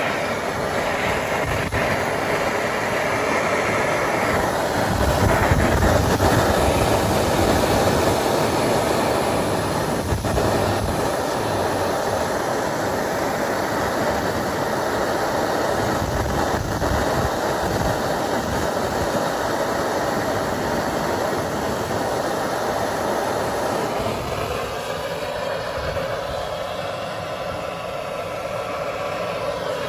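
Handheld cartridge gas blowtorch burning with a steady hiss, its flame held on the collar of a van's front lower suspension arm to heat it and free a seized ball joint from a wedged-in ball joint splitter.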